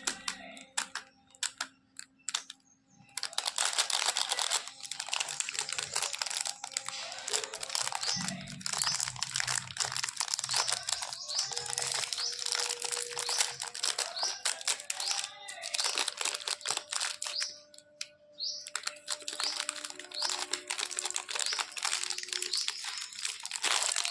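Candy wrappers crinkling and rustling in dense, crackly clicks, over background music.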